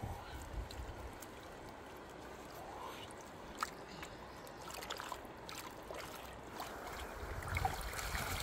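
River water sloshing and trickling as a head of curly leaf lettuce is swished and rinsed by hand, with scattered small splashes and drips.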